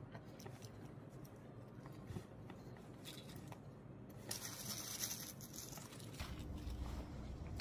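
Faint eating sounds, then hands rubbed briskly together for about two seconds, brushing crumbs off the fingers.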